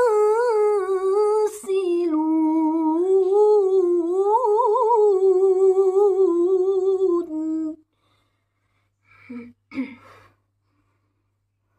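A woman's unaccompanied Quran recitation in melodic tilawah style: one long, ornamented sung phrase with wavering turns and slides, held to the close of a verse and ending about three-quarters of a second before the 8-second mark. Near silence follows, broken by two short sounds a couple of seconds later.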